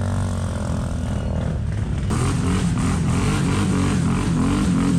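ATV engine running hard under full throttle on a steep hill climb. About two seconds in it grows harsher and starts pulsing rhythmically a few times a second as it labours up the slope.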